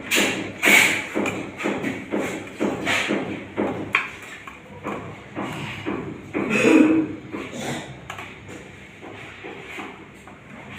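A run of irregular thumps with some shuffling, about two or three a second, with one louder burst about seven seconds in, growing fainter near the end.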